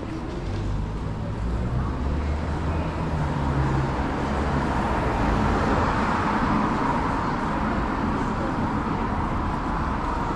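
City street traffic: a low engine hum during the first few seconds, then a vehicle's passing noise swelling to a peak about halfway through and easing off.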